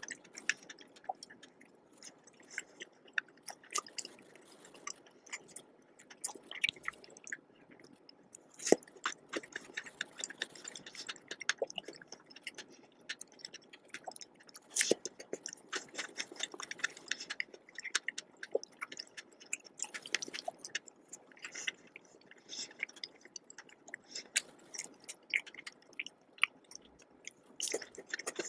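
Close-miked chewing of a soft, creamy dessert, with many short wet mouth clicks and smacks coming irregularly throughout.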